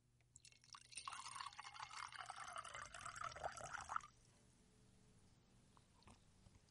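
A drink poured from a bottle into a glass, a splashing pour lasting about three seconds that stops abruptly about four seconds in.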